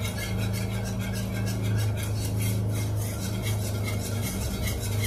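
Wire whisk scraping and clinking against a pan in rapid, even strokes as it stirs a thickening white sauce, over a steady low hum.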